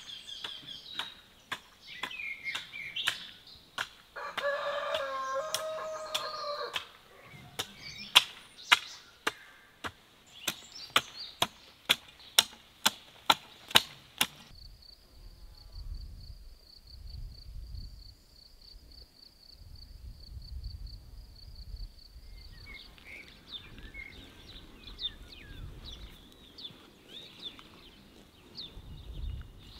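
A garden hoe chopping into soil in repeated sharp strikes, with a rooster crowing for a few seconds among them. The strikes stop suddenly about halfway through, leaving birds chirping over a low wind rumble.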